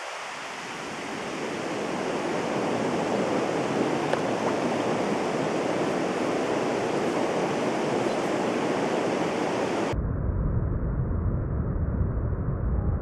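Steady rush of river water, swelling over the first couple of seconds. About ten seconds in it cuts abruptly to a muffled low rumble.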